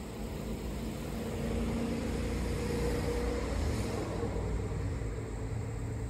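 A motor vehicle engine running steadily, growing louder about a second in and then holding.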